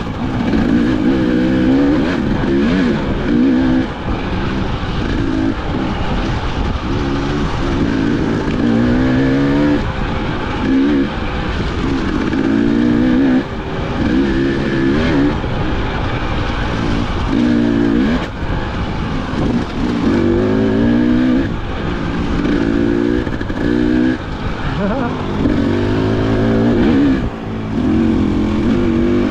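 Two-stroke 300 cc dirt bike engine being ridden hard, revving up and dropping back over and over, the pitch climbing and falling every second or two with the throttle.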